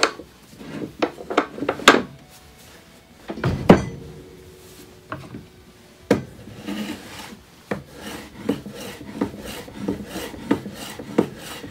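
The wooden wedge of a Stanley wedge vise tapped home by hand with a few sharp knocks, the loudest about three and a half seconds in, locking a thick board in place. From about six seconds in, a hand plane takes a run of short strokes along the board's edge, about one and a half a second.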